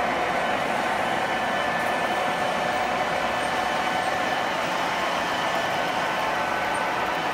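Electric model trains running on a layout: a steady rolling rumble of wheels on track mixed with a steady motor hum from several trains at once, as a long train of freight cars passes close by.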